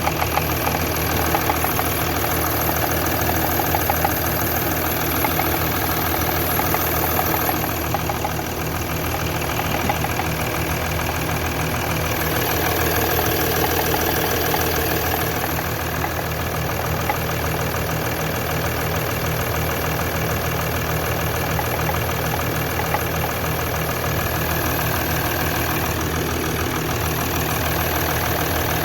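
Mercedes-Benz OM642 3.0-litre V6 turbodiesel idling steadily with a repeating knock in its running; the owner cannot tell what is causing the knock.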